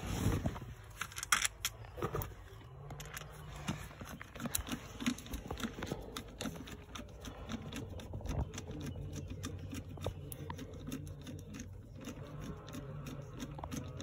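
Ratchet screwdriver clicking in quick, irregular runs as a screw is turned in by hand, with light handling knocks.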